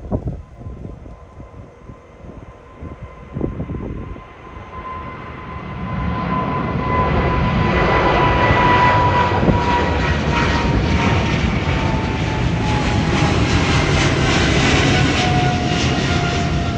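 Boeing 777 freighter's twin GE90 turbofans at takeoff power: the jet noise swells from about five seconds in and holds loud and steady, with a fan whine that slowly slides lower in pitch as the aircraft passes. Before that, gusty wind on the microphone.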